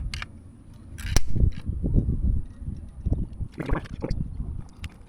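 A hand-squeezed caulk gun being worked, giving a sharp click about a second in and a short rasp a little after three and a half seconds, over a low rumble of wind on the microphone.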